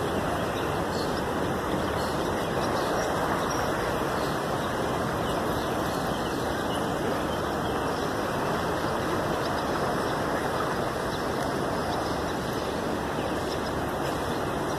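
Steady, even rushing of flowing floodwater.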